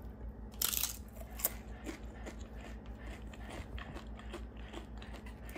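Crunching and chewing a tortilla chip topped with chili. The loudest crunch comes about half a second in, followed by smaller crunches, while a dog pants steadily.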